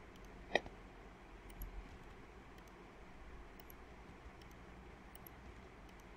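Computer mouse and keyboard clicks: one sharp click about half a second in, then faint scattered clicks over a steady low hiss.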